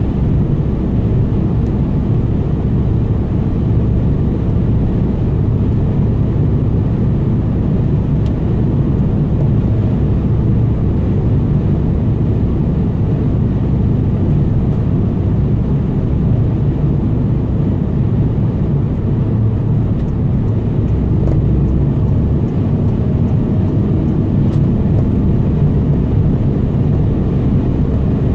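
Steady low rumble of a car cruising at speed: tyre and engine noise heard from inside the car.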